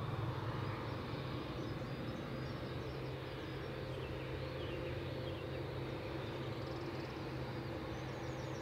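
Boeing 787-8 Dreamliner's jet engines at taxi idle: a steady hum with a few held tones. Birds chirp faintly above it.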